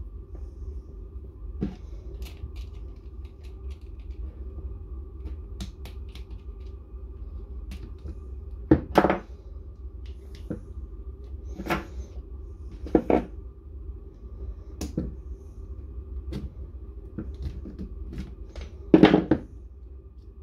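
Scattered knocks and clicks of core drill parts being handled during a brush replacement, the loudest about 9, 13 and 19 seconds in, over a steady low hum.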